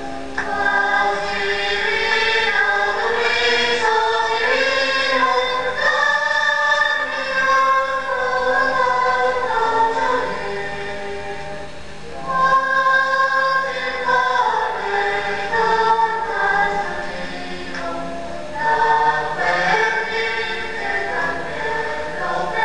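Choir singing slow, held phrases in harmony as background music, pausing briefly twice between phrases.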